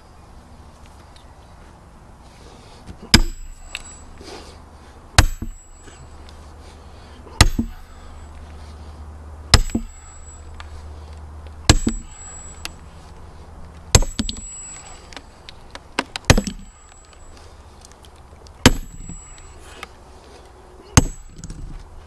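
A sledgehammer striking a steel splitting wedge driven into a wood round, nine hard blows about two seconds apart, each with a sharp metallic clang and short ring.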